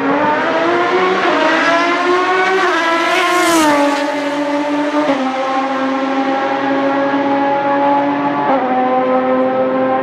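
Ferrari 550 GT1 race car's V12 accelerating hard toward and past, its pitch climbing and then falling as it goes by. It then runs on at high revs as it pulls away, with two abrupt drops in pitch from upshifts, a little after the pass and again near the end.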